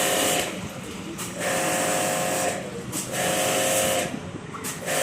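Portable high-pressure water jet pump used in AC servicing, switched on in bursts of about a second at a time: a motor whine with the hiss of the water spray, stopping and starting roughly every one and a half seconds.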